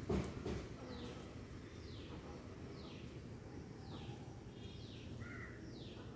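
A bird calling a short falling chirp about once a second, over outdoor ambience, with a louder low jumble of sound in the first half-second.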